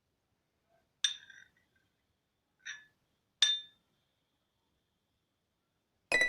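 Three short clinks of kitchenware, one about a second in and two more close together past the middle. Music starts at the very end.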